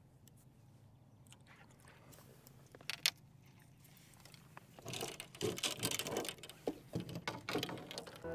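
Fishing tackle being handled on a boat deck: two light clicks about three seconds in, then from about five seconds a run of clicks, taps and rustles.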